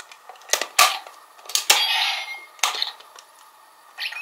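Zyuoh Changer toy phone's keypad buttons being pressed: a series of sharp clicks with short electronic sound effects from the toy's speaker. A rising electronic tone starts near the end.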